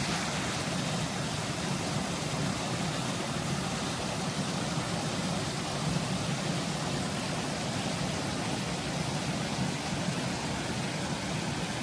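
A rain-swollen stream pouring over a small cascade of boulders: a steady rushing of water.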